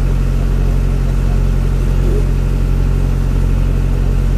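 Houseboat's engine running steadily as the boat cruises, a constant low drone with several deep, even tones.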